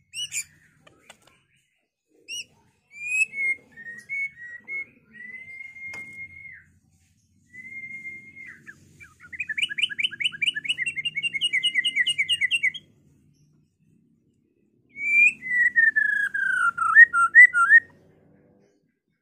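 White-rumped shama singing a varied song. A few short chirps lead into long, clear held whistles, then a fast trill lasting a few seconds. After a short pause comes a falling whistled phrase that breaks into quick notes.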